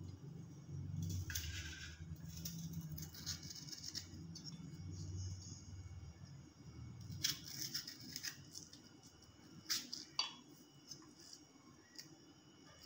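Faint scraping and clicking of a kitchen knife peeling and trimming taro stalks, a few scattered strokes at a time, over a low hum that fades out about halfway through.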